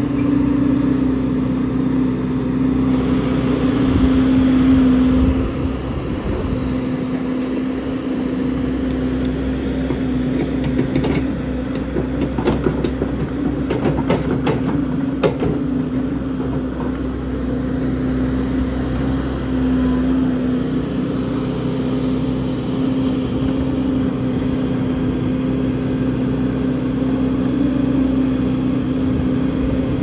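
Big backhoe's diesel engine running steadily. A run of sharp clanks and rattles comes between about eleven and fifteen seconds in.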